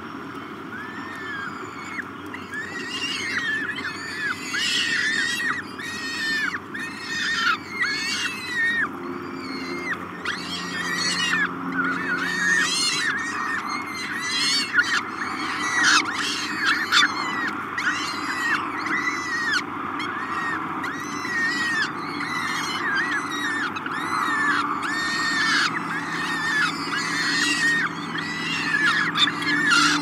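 Downy peregrine falcon chicks begging while an adult feeds them: a nonstop stream of short, high calls, several a second, each rising and falling in pitch.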